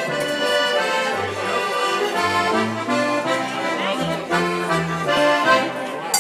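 Accordion music: a tune played over a bass line of held notes that change every half second or so.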